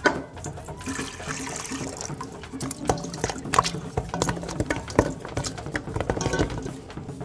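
Water pouring and splashing into a pot, with irregular knocks and clatter of chopped panela pieces going in with it.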